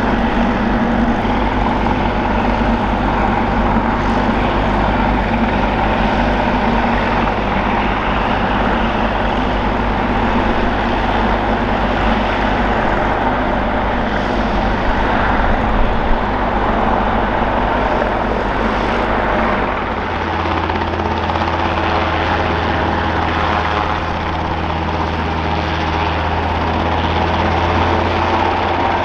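Robinson R22 Beta II helicopter ground-running, its four-cylinder Lycoming piston engine running steadily with the main and tail rotors turning. The low engine note changes about two-thirds of the way through.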